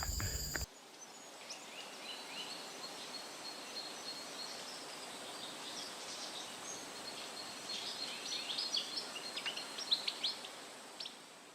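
Forest birds chirping: many short, quick calls that grow busier toward the end, over a faint steady high whine.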